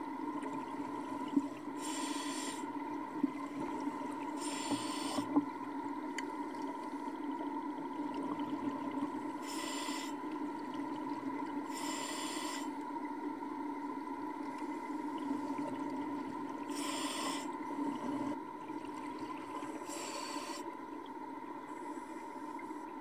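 Underwater sound of a scuba diver breathing: six hissing bursts of exhaled bubbles a few seconds apart, over a steady hum. There are a few sharp clicks in the first few seconds.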